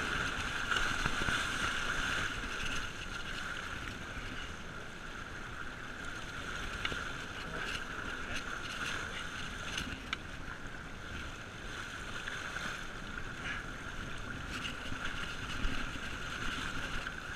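Water rushing and splashing along the side of a moving sportfishing boat, churned white around a blue marlin held at the hull, with a steady boat noise underneath and a few faint clicks.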